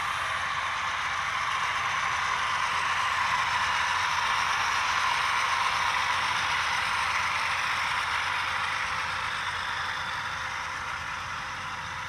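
HO scale model freight train rolling past on the layout: a steady rushing clatter of small metal wheels on the rails. It swells in the middle and fades near the end.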